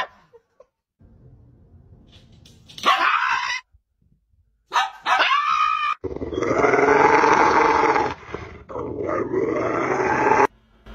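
Rottweiler growling in a long, loud, sustained growl of about four seconds, broken by a short pause partway through, that cuts off abruptly. Before it come two short, sharp dog vocalisations.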